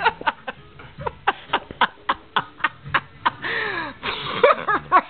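A person laughing hard in short, rapid breathy bursts, about three or four a second, with a drawn-in gasp a little past the middle.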